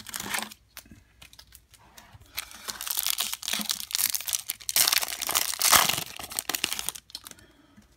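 Shiny plastic wrapper of a Topps WWE trading card pack crinkling as the pack is pulled from the box, then torn open and pulled apart. A brief crinkle comes at the start, then a long run of crackling and tearing from about two seconds in, loudest near the end before it stops.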